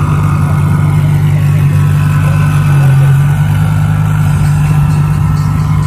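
Lamborghini Huracán Performante's V10 running at low revs as the car pulls away slowly, a steady, deep engine note.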